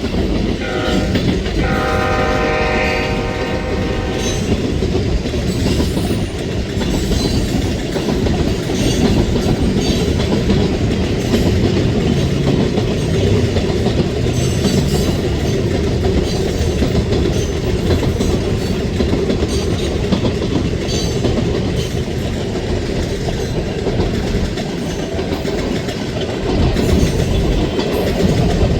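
Freight train locomotive horn sounding a chord, stopping about four seconds in, then the steady rumble and clickety-clack of a BNSF manifest freight train's cars rolling past.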